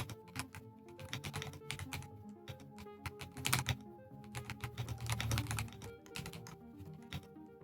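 Typing on an H98 mechanical keyboard: a quick, uneven run of key clicks, busiest in the middle, over background music.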